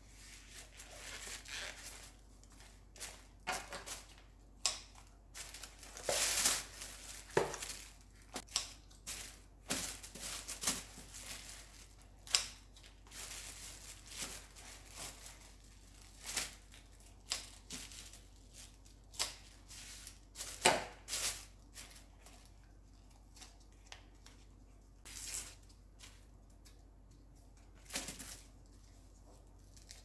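Hands cleaning green onions on a plastic bag: dry outer leaves being torn off, the plastic bag rustling and crinkling, and now and then a snip of kitchen scissors. Short irregular rustles and sharp clicks with quiet gaps between them.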